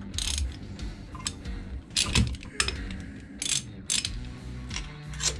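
Ratchet wrench clicking in several short runs of quick clicks as it undoes bolts on a Yanmar marine diesel engine, with the loudest run about two seconds in.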